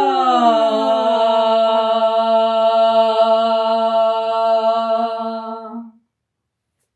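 Women's voices doing a siren vocal exercise: a sung tone slides down in pitch, then holds one steady note for about five seconds and stops abruptly about six seconds in.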